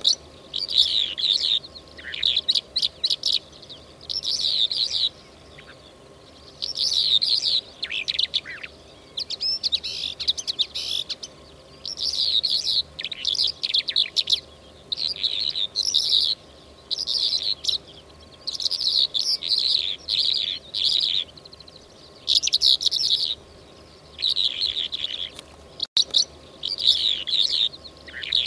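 A lark singing: about a dozen short, rapid chirping phrases, each about a second long, with brief pauses between them.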